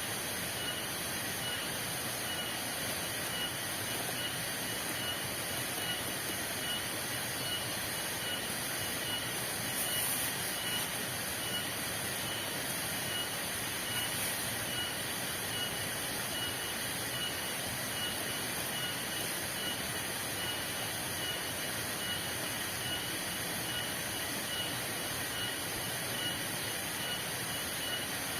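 Steady heavy rain falling in a forest, an even hiss that does not let up, with a faint, regular high chirping running through it.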